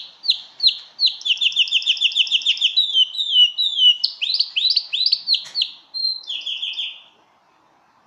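Male domestic canary singing: fast trills of rapidly repeated falling whistled notes, switching to a new phrase every second or so. The song stops about seven seconds in.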